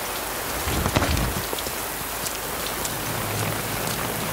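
Steady rain falling, an even hiss with scattered drop ticks. There is a louder low thud about a second in.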